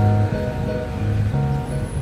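Music: a tune of held notes over a low bass line, changing pitch every half second or so.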